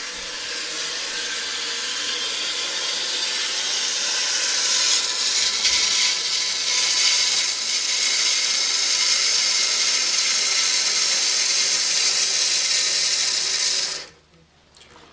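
Kohler Master 400A toilet fill valve hissing as it refills the tank, growing slightly louder, then shutting off abruptly near the end as the tank reaches its fill level.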